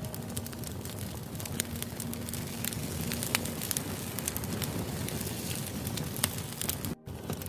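Wood fire burning, with irregular sharp crackles and pops of firewood over a steady low rush of flames. The sound cuts out for an instant about seven seconds in.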